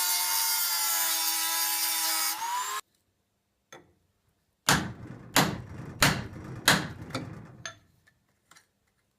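A power tool running with a steady whine whose pitch sags slightly and then lifts before it cuts off about three seconds in. After a pause come four heavy knocks, roughly two-thirds of a second apart, each with a short rattle, and then a couple of light clicks as a part of a Citroën 2CV's engine is worked loose.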